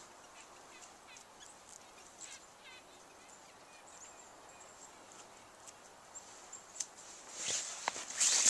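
Mostly quiet outdoor air with a few faint bird chirps and light clicks in the first few seconds, then rustling and footsteps that grow louder near the end.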